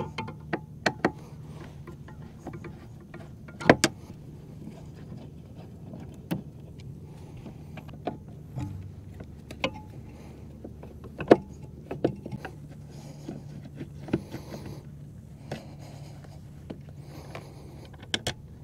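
Irregular sharp clicks and taps of a screwdriver working stainless steel screws out of an acrylic mounting plate, over a steady low hum.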